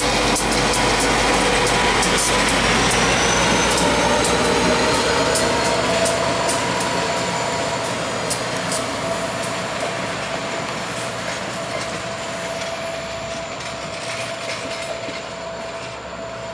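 Train passing close by: an EMD GP40WH-2 diesel locomotive with its 16-cylinder two-stroke engine goes past, then passenger and track geometry cars roll by with wheels clicking over the rail and a steady whine. The sound slowly grows quieter through the second half as the locomotive moves away.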